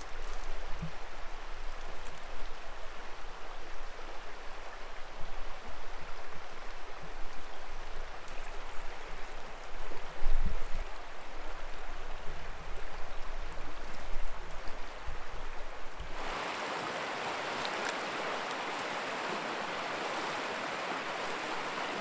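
Rushing creek water, a steady hiss, with low rumbling and a few knocks, the loudest about ten seconds in. About sixteen seconds in it turns to a steadier, brighter rush of water without the low rumble.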